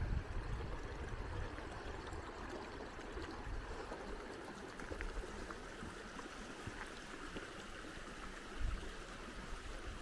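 Creek water running steadily, with low wind rumble on the microphone now and then, strongest about eight and a half seconds in.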